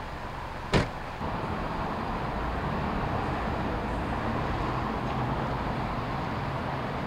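A patrol SUV's door slams shut once, a sharp bang under a second in. After that comes steady vehicle and road traffic noise.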